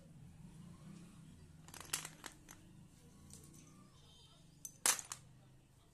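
White chalk sticks clicking and clattering against each other and a metal plate as they are handled, in two short bursts about two seconds and five seconds in, the second louder. A faint low hum runs underneath.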